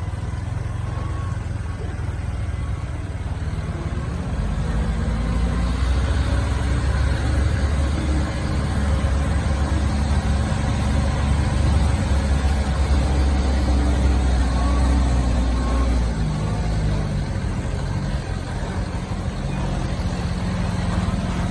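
Diesel engine of a truck loaded with sugarcane, running slowly under load. It is a deep rumble that grows louder about five seconds in and eases off around sixteen seconds.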